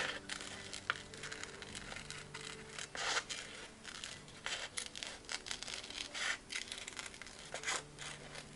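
Scissors cutting around a circle in decorative paper: short, irregular snips and paper rustles a second or so apart, after a sharp click at the very start.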